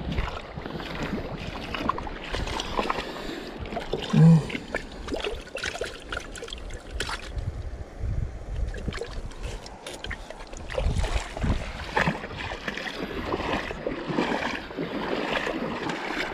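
Shallow river water splashing and sloshing, with scattered clicks and knocks of handling as a mesh landing net is worked in the water. A brief, louder low tone stands out about four seconds in.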